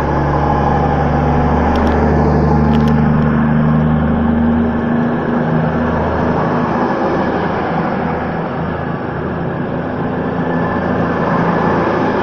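Double set of Class 220 Voyager diesel-electric multiple units running on their underfloor diesel engines as the train draws along the platform, a steady engine drone that eases slightly about five seconds in.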